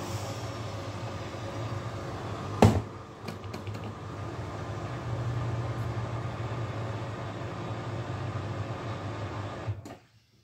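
Bush front-loading washing machine in its 1200 rpm final spin with an extremely unbalanced load, the drum and motor running with a steady low rumble. One sharp, loud bang comes about three seconds in. The rumble stops abruptly near the end.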